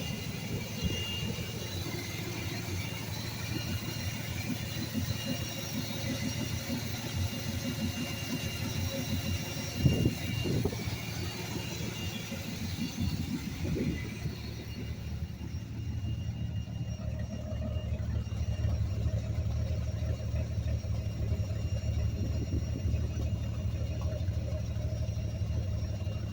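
Ford 300 cubic-inch inline-six with a Quadrajet carburettor running at idle, a steady low drone with two brief swells about ten and fourteen seconds in. The owner takes its running for the sign of a severe vacuum leak somewhere around the carburettor.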